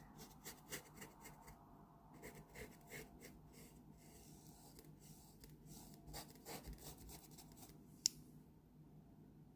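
Faint scratching of a small paintbrush laying paint on with many short, quick strokes, with a single sharp tick about eight seconds in.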